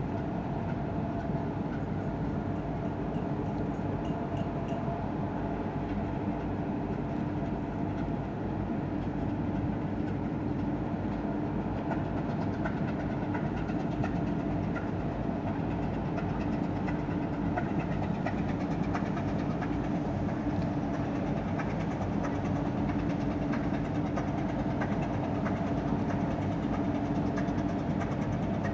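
Cargo ship's diesel engine running steadily under way, a continuous drone with a steady low hum and faint ticking.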